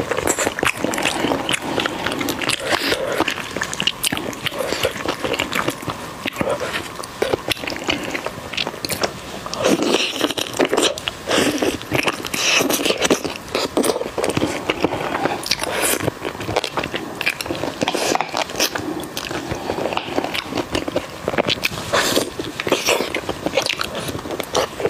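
Close-miked eating: biting into and chewing chunks of braised pork trotter coated in chili oil, a steady run of many small mouth clicks and chewing noises.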